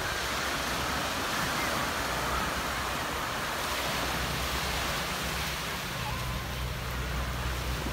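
Small waves breaking and washing up a sandy shore, a steady sound of surf.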